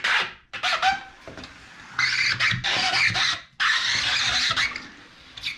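Rubber window squeegee drawn across wet glass in a series of strokes, each a rasping swish with brief squeaks.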